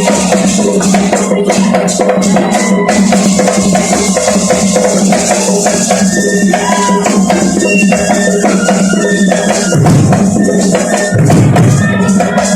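Ensemble of big drums playing a dense, continuous rhythm, with rattling percussion over it. Deeper drum strokes grow louder about ten seconds in.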